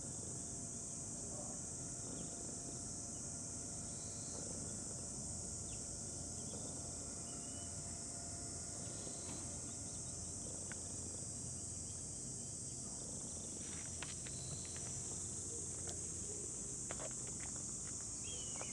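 Insects buzzing in a continuous high-pitched drone, with a low outdoor rumble underneath. A few faint clicks come about three-quarters of the way through.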